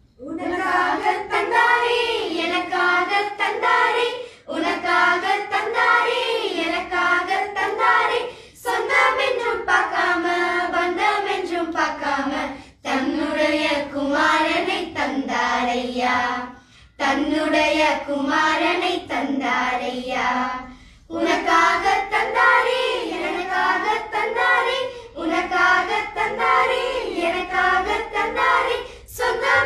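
A group of girls singing a Christmas song together, unaccompanied, in phrases of about four seconds broken by short pauses for breath.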